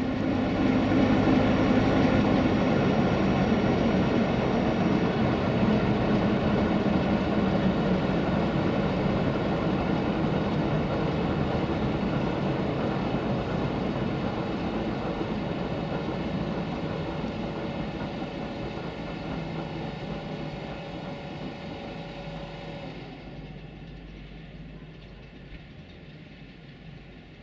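Sulzer 12LDA28 twelve-cylinder diesel engine of an LDE2100 (060-DA) locomotive running and then being shut down. The sound fades slowly over about twenty seconds, and its higher part drops out about three-quarters of the way through.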